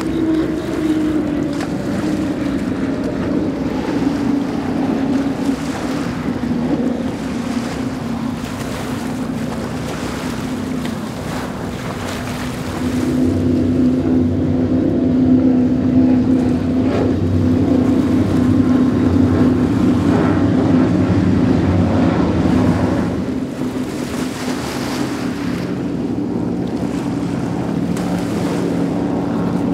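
High-performance offshore powerboats passing at speed, one after another: a steady, loud engine drone over water and wind noise on the microphone. The sound swells with a deeper rumble about 13 seconds in, when a pack of boats runs by, and eases back about 23 seconds in, as an MTI V-50 on five Mercury 450R outboards passes.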